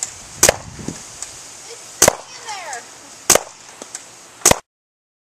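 Four sharp shots from a CO2-powered DSG paintball shotgun, about a second to a second and a half apart, the paintballs hitting a vest. The sound cuts off abruptly near the end.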